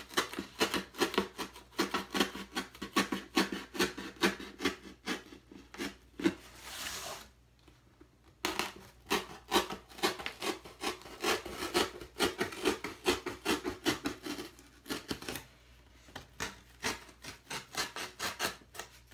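Craft knife sawing through corrugated cardboard in quick, short strokes, about four or five a second. The cutting stops briefly twice.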